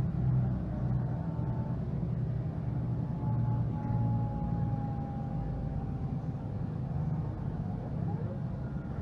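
Mercedes-Benz Citaro G articulated bus's OM457hLA straight-six diesel running, a steady low hum that pulses in strength. A thin whine slowly falls in pitch through the middle, and the sound eases off a little toward the end.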